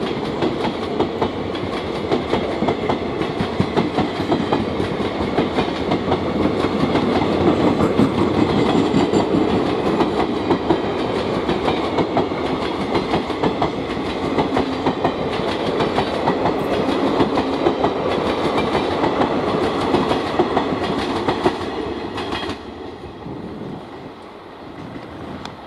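Empty ICF passenger coaches rolling past as the train picks up speed, their wheels clicking rapidly over the rail joints with a dense, steady rumble. About 22 seconds in the sound drops sharply as the last coach goes by and then fades away.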